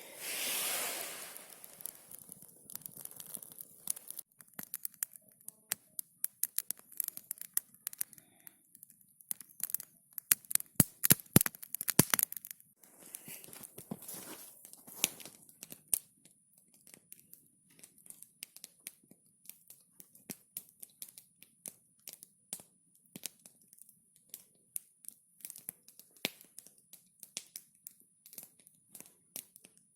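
Rustling, tearing noise at the start, then irregular sharp clicks and pops, with a dense run of loud pops about ten to twelve seconds in.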